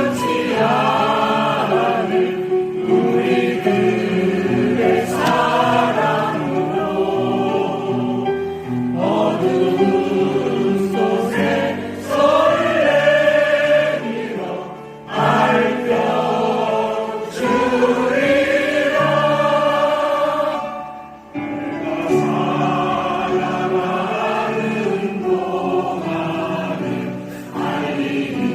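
A choir singing a song in long sung phrases, with short breaks between phrases about 15 and 21 seconds in.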